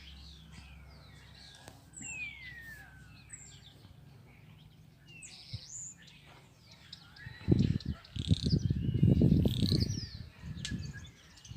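Small birds chirping and singing, with many short high calls and quick falling whistles. About two-thirds of the way in, a loud low rumble lasting a few seconds comes in and becomes the loudest sound.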